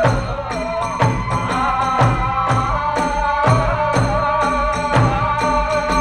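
Hiroshima kagura hayashi music: a high bamboo flute melody over a steady beat of drum strokes and clashing hand cymbals.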